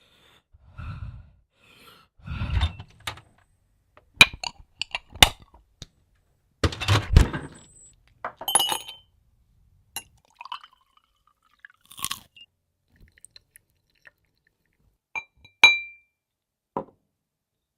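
Homemade foley sound effects: a series of separate thumps, clicks and rustling knocks, with two short clinks that ring briefly, the second and sharpest near the end.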